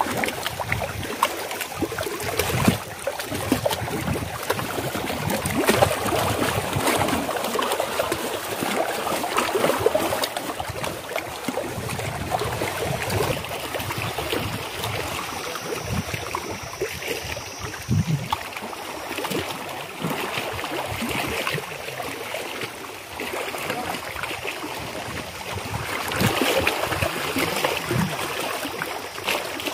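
Small waves lapping and splashing against shoreline rocks, a steady uneven wash of water.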